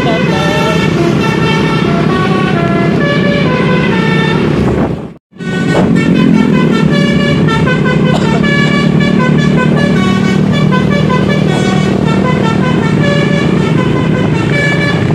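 Bus telolet horn (multi-tone musical air horn) playing a quick run of changing notes over and over, with the bus's engine running underneath. The sound cuts out for a moment about five seconds in, then the horn tune carries on.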